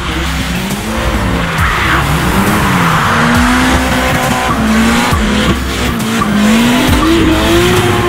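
Drift car engine revving up and down hard while the tyres squeal and skid through a slide, with music playing underneath.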